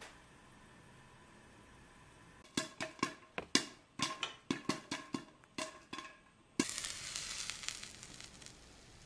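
Popcorn kernels popping in a covered popcorn pot with a stirring arm: after a quiet start, about twenty sharp separate pops, some ringing briefly off the lid. At about six and a half seconds a dense hissing crackle of hot oil starts suddenly, then fades away.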